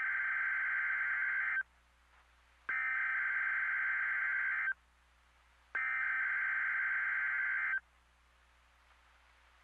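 NOAA Weather Radio SAME header: three bursts of warbling digital data tones, each about two seconds long with about a second between them, the coded alert that opens a National Weather Service flood advisory broadcast.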